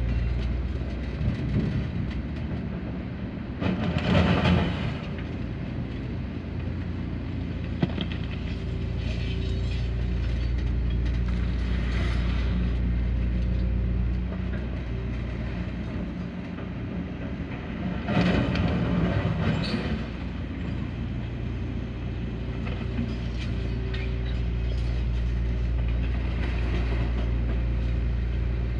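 Hyundai 235 crawler excavator's diesel engine running steadily, its pitch and strength rising and falling with the hydraulic work cycle. Two loud rattling crashes, about 4 seconds in and again around 18 to 19 seconds, fit bucket loads of material dropping into a Scania truck's steel dump body.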